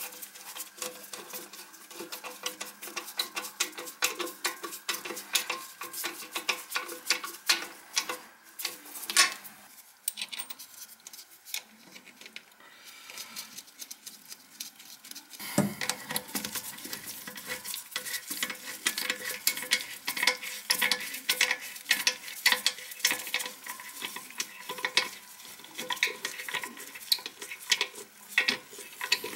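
Socket ratchet clicking in quick strokes as it tightens the nuts onto a toilet's closet bolts, bolting the bowl down to the floor flange. The clicking stops for a few seconds about halfway through, then resumes.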